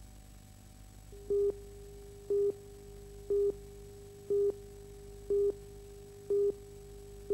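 Film countdown leader beeps: a short beep of one mid pitch about once a second, starting about a second in. A faint steady hum and hiss run underneath.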